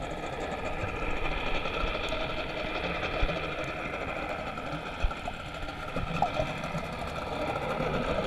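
A boat engine running heard through the water: a steady mechanical hum with a few faint knocks and clicks.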